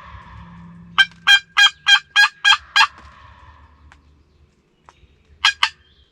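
Wild turkey yelps: a quick run of seven sharp yelps about a second in, then two more pairs of yelps near the end.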